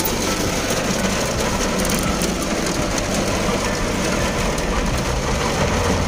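Heavy rain on a moving car, heard from inside the cabin: a steady hiss of rain and wet road over a low rumble of the car.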